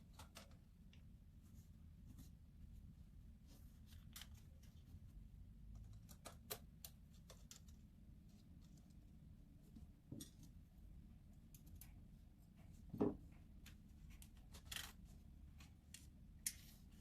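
Faint, scattered small clicks and taps of a Canon PowerShot SX730 compact camera's plastic body and parts being handled during disassembly, over a low room hum. One click about 13 seconds in is the loudest.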